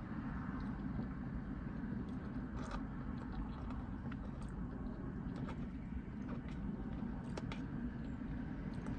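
A person quietly chewing food with small, scattered mouth clicks, over a steady low background hum.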